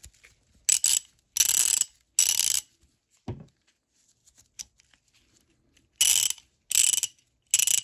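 Vintage KAL USA 1/2-inch-drive ratchet, freshly reassembled, clicking in short rapid runs as its handle is swung back and forth: three runs at the start and three more near the end, with a single low knock between.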